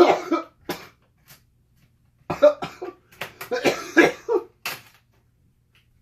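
A man coughing in short fits, briefly at the start and again in a run of coughs from about two seconds in, his throat burning from ghost pepper chips.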